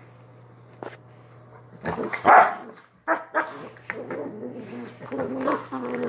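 Small dogs play-fighting: a loud bark about two seconds in, then a run of growls and short barks.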